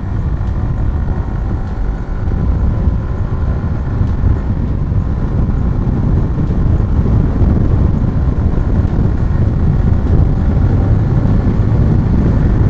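Yamaha R15 V4's 155 cc single-cylinder engine running steadily under way, with heavy wind rumble on the microphone.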